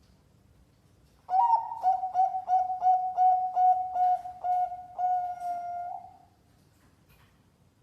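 Zebra dove (perkutut) singing one competition-class phrase: starting about a second in, an opening note, a quick run of short coos about three a second, then a long drawn-out final note.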